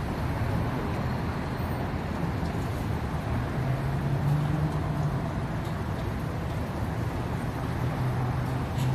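Vehicle traffic: a steady motor-vehicle engine hum with road noise, the low engine tone growing louder about three and a half seconds in and again near the end.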